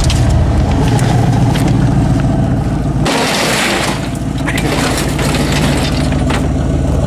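Vehicle engine running steadily, with frequent clattering rattles and a brief loud rush of noise about three seconds in.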